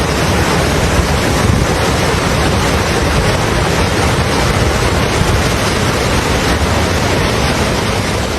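Floodwater rushing steadily, a loud continuous wash of noise with no breaks.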